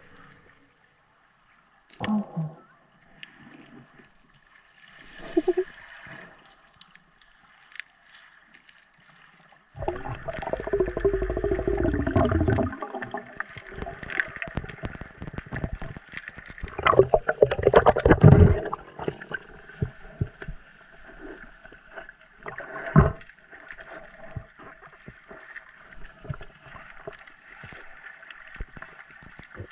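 Underwater sound through a camera's waterproof housing: muffled bubbling and gurgling bursts, loudest about ten to thirteen seconds in and again around eighteen seconds, with a sharp knock a few seconds later, over a faint steady hum.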